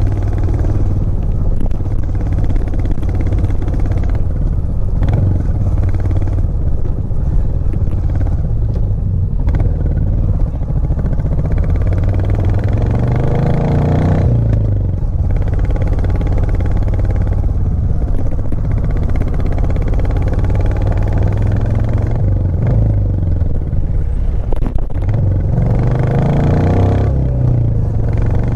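Royal Enfield Classic 350 Reborn's single-cylinder engine running on the move under load. Its pitch climbs twice, peaking about halfway through and again near the end, and falls back after each.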